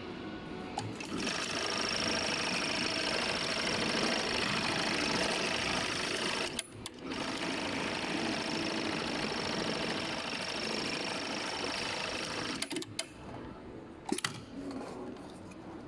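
JYL-G2516S computerized industrial pattern sewing machine stitching a shoe upper clamped in its template: it runs at steady speed with a thin high whine, halts briefly a little under halfway, runs on, then stops near the end with a few sharp clicks.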